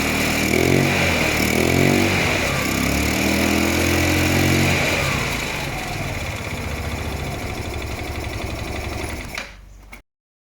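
Okinoi 150cc scooter engine, its carburettor just repaired, being revved up and down a few times, then running lower and steadier. It fades and cuts off abruptly about ten seconds in.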